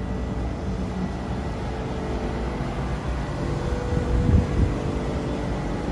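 Steady machine hum with a few constant tones, with a brief louder low rumble about four seconds in.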